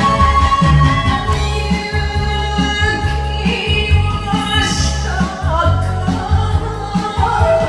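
Enka accompaniment track with a steady beat, and a woman singing the melody into a handheld microphone over it, her voice coming in partway through.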